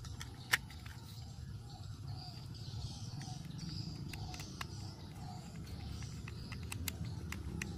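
Birds calling repeatedly in the background over a low steady outdoor hum. There are a few sharp plastic clicks as a small screwdriver works on a toy train's plastic body, the loudest about half a second in.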